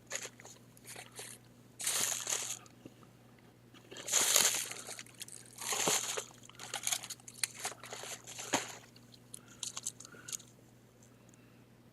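Crinkling and rustling as the plastic case pieces and peeled label of a disassembled laptop battery pack are rummaged through, in several separate bursts with light clicks between them, loudest about four seconds in and dying away near the end.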